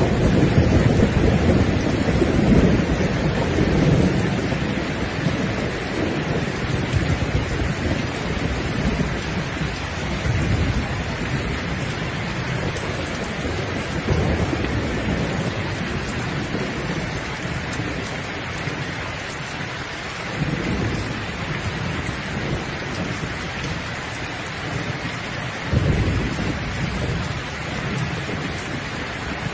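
Steady rain hissing, with rolling thunder rumbling low underneath. The thunder is strongest in the first few seconds and swells again near the end.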